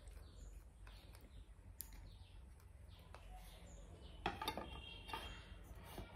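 Steel dishes being handled during a meal: a few light clicks, then a short clatter with a brief metallic ring a little over four seconds in, as a small steel plate is set down. Faint repeated bird chirps sound in the background.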